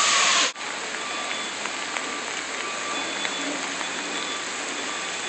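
Loud rush of floodwater that cuts off suddenly about half a second in, followed by a steady hiss of rain falling on a wet street.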